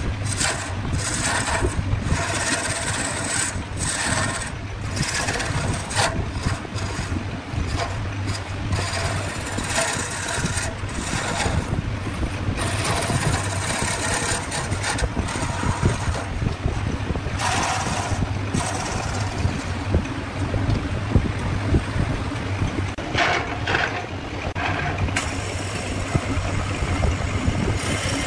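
Wood lathe running with a steady motor hum while a turning tool cuts and scrapes the spinning wood in irregular strokes.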